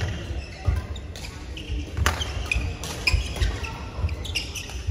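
Badminton rally on an indoor court: several sharp racket strikes on the shuttlecock, short high-pitched shoe squeaks on the court mat, and thudding footsteps as the players move.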